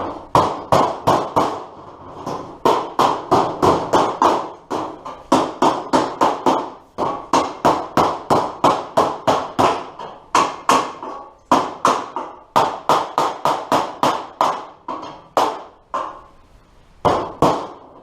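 Hammer striking the sheet-steel door panel of a 1939-47 Dodge truck, sharp ringing metallic taps about three a second in runs with short pauses, shaping a corner of the panel to fit.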